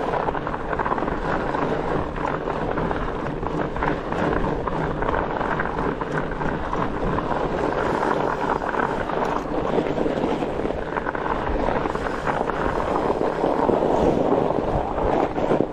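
Steady rushing noise of a fat bike riding along an icy snow trail: wide tyres rolling over snow and ice, with wind on the microphone.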